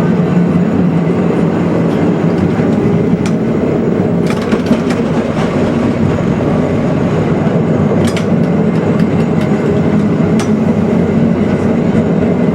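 Milan-built Peter Witt streetcar running along the rails: a steady low rumble with scattered sharp clicks and clacks from the wheels and track, several of them in a cluster around the middle.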